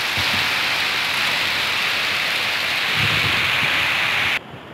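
Heavy rain pouring down in a steady hiss, with a low rumble about three seconds in. It cuts off suddenly near the end.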